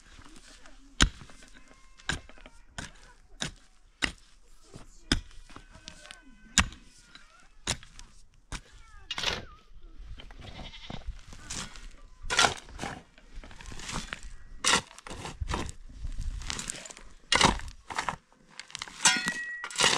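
A metal digging tool striking dry, stony earth in short sharp blows about every half second, then a shovel scraping and scooping loose soil and stones every few seconds. Livestock bleat faintly in the background.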